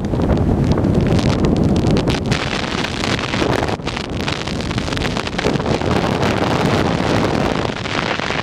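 Wind buffeting the microphone of a camera held at the open window of a moving car, over the car's road noise.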